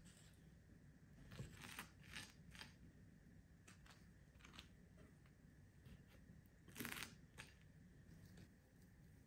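Faint scrapes and soft clicks of a knife cutting through an avocado held in the hand, with pieces dropping onto toast. Several short strokes come in a cluster about a second or two in, and the loudest, longest scrape comes about seven seconds in.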